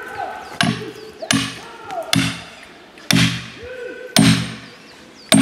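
A series of heavy knocks: six blows about a second apart, each ringing briefly after the strike.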